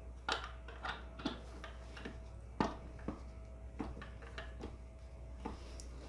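Irregular small clicks and taps of metal parts being handled and fitted on an AR-15 upper receiver clamped on a vise block rod in a bench vise, about a dozen in all, over a faint steady hum.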